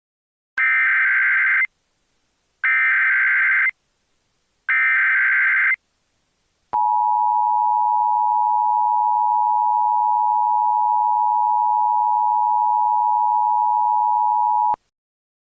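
Emergency Alert System broadcast tones: three one-second bursts of SAME header data a second apart, then the two-tone attention signal held steady for about eight seconds before cutting off. Together they mark the start of an emergency alert message.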